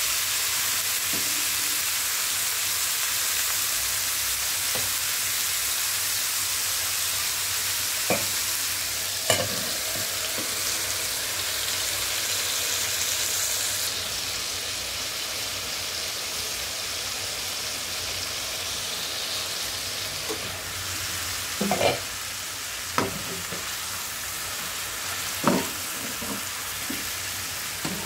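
Chicken pieces sizzling in liquid in a frying pan, a steady hiss that drops a little about halfway through, when a metal lid covers the pan. A metal spatula knocks and scrapes against the pan a few times.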